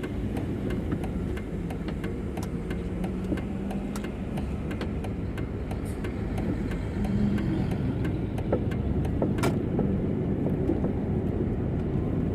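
Car running: a steady low rumble with scattered light clicks, and one sharper click about nine and a half seconds in.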